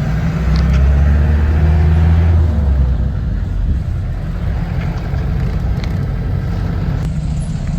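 Bus engine running with a steady low hum, louder for the first couple of seconds and then settling to an even drone.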